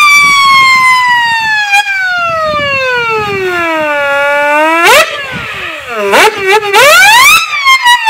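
Frank Rathmell mechanical siren run on compressed air, winding slowly down in pitch for about four seconds, then swooping back up, dipping and rising again. Short bursts of air hiss come around the fifth and sixth seconds.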